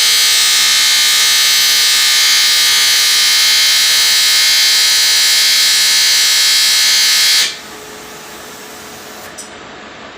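Aluminium welding arc buzzing loudly and steadily while a hole in an aluminium cylinder head is welded up, cutting off abruptly about seven and a half seconds in. A quieter steady hum carries on after.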